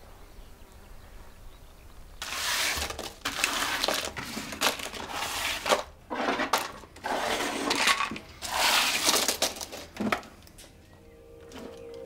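Handling of small items on a wooden kitchen counter: repeated bursts of scraping and rustling with sharp clinks, several in a row over about eight seconds, then a few soft sustained music tones enter near the end.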